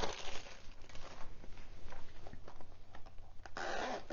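Clear plastic wrapping rustling and crinkling, with small irregular clicks, as a leather pen pouch is slid out of its bag and handled. A louder rasp comes near the end.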